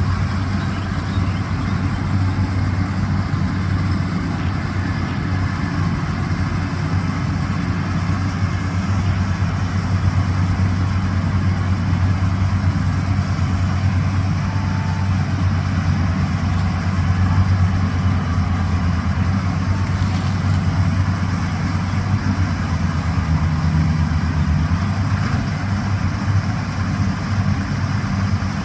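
Rice combine harvester's diesel engine running steadily, a constant low drone, with a thin high-pitched whine that comes and goes.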